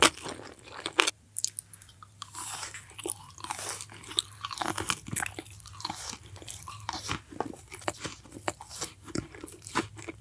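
Close-miked eating: a continuous run of crunchy bites and chewing, with many sharp crackles.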